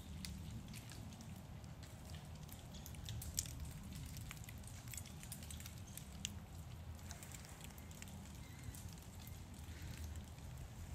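Faint scattered ticks and small clatters of ice breaking off wind-blown tree branches and falling through the woods, over a low rumble of wind on the microphone.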